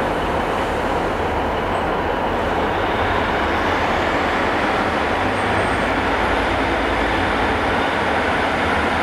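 Diesel multiple-unit trains running, a steady, continuous rumble.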